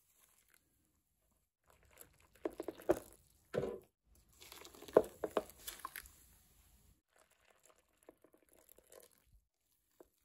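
Boiled water poured onto dry couscous grains in a bowl: uneven splashing and crackling spurts for a few seconds from about two seconds in, fading to a few faint ticks near the end.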